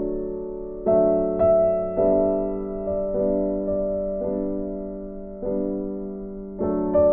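Background piano music: slow notes and chords, each struck and left to ring and fade, about one a second.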